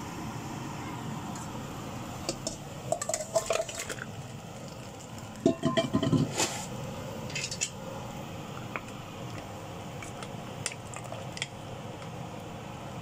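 Stainless-steel cooking pot clanking and clinking as it is handled, in two bursts, the second with a heavier knock about six seconds in, then a few light clicks. A steady hum runs underneath.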